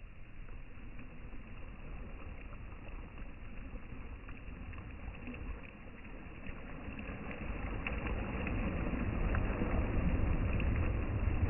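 Sea waves washing on the shore, a steady rushing that swells louder about halfway through, with faint scattered clicks.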